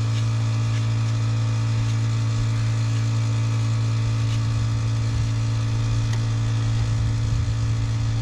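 A loud, steady mechanical hum with a deep fixed pitch and fainter higher tones, over an uneven low rumble like wind on the microphone.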